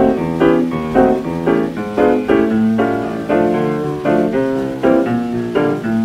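Solo jazz piano played back from a 1930 Brunswick 78 rpm record. Chords are struck in a steady beat about twice a second over a low bass line.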